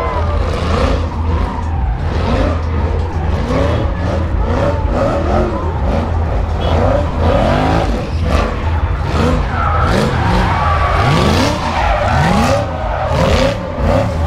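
Sports car drifting in circles: its engine revs up and down again and again over the hiss and squeal of skidding tyres.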